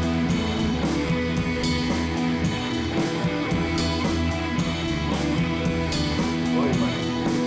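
Background music led by guitar, at a steady level.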